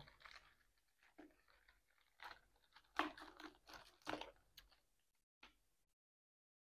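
Faint mouth sounds of sipping, swallowing and chewing while drinking Bong Bong grape juice, which has pieces of grape in it, from a can. They come in a few short clusters, the loudest about three and four seconds in.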